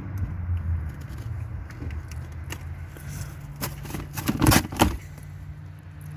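Cardboard box and packaging being handled and opened, with scattered clicks and a few loud rips or scrapes about four to five seconds in, over a steady low hum.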